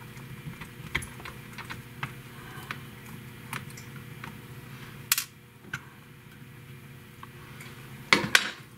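Small metal clicks and taps of a Pentax K1000's bottom-plate screws and cover being handled as the bottom cover is taken off, with a sharper click about five seconds in and a louder clatter near the end, over a steady low hum.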